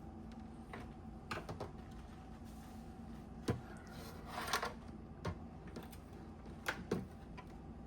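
Light clicks and taps of small hard parts being handled on a workbench, half a dozen scattered knocks with a short scrape about halfway through, over a faint steady hum.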